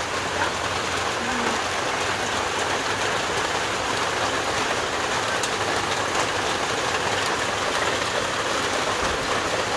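Heavy rain falling steadily, an even hiss of a downpour on grass and wet ground.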